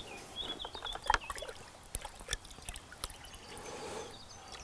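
Water poured from a plastic container into a plastic bucket, trickling and splashing faintly, to soak bread for groundbait.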